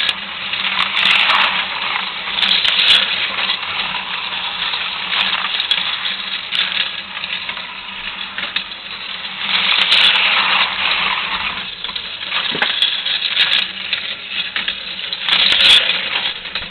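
Aurora AFX HO scale slot car trucks running laps on a plastic track: their tiny electric motors and pickup shoes buzz and rattle along the rails, swelling several times as cars pass close by.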